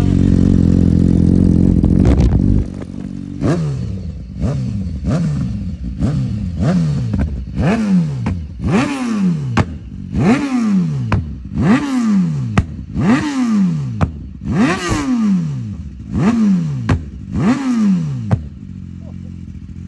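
BMW S1000RR inline-four sport bike engine, held at a steady note for a couple of seconds. It is then revved in over a dozen quick blips, about one a second, each rising sharply and falling back. It drops to a steady idle near the end.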